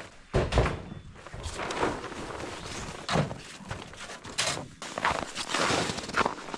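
Irregular thunks and scuffing, with footsteps: gear being moved and handled.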